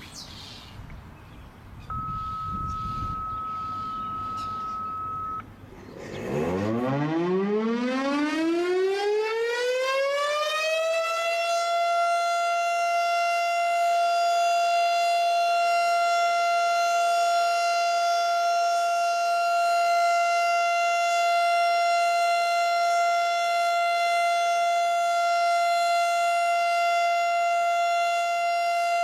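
A steady high tone for about three seconds, then a Federal Signal STH-10 outdoor warning siren winds up from about six seconds in. Its pitch rises for some five seconds, then holds one steady tone: the steady alert signal of a monthly siren test.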